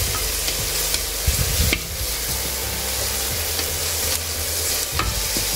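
Chopped onions with ginger and garlic sizzling in hot oil in an aluminium pressure cooker, stirred with a wooden spatula that scrapes and knocks against the pan a few times. They are being sautéed until golden brown.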